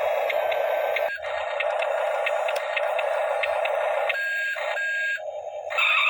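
Electric motors and gearboxes of a Huina 1593 RC excavator whirring with a steady buzz and regular clicking. The sound changes pitch and drops near four seconds in, then comes back louder near the end as another function is driven.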